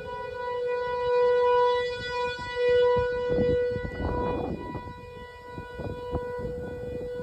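Outdoor tornado warning siren sounding a steady, unchanging pitch that swells and fades in loudness, signalling a tornado warning. A brief rush of noise rises and falls about four seconds in.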